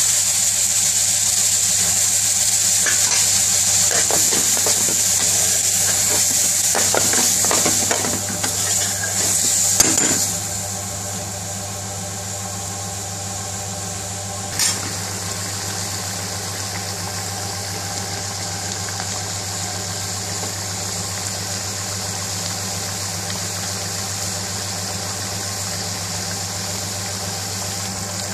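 Prawn curry sauce sizzling and simmering in a metal pan on a gas burner. A metal spoon scrapes and knocks against the pan for several seconds, after which the sizzle drops to a quieter, steady simmer. A single knock comes about fifteen seconds in, over a steady low hum.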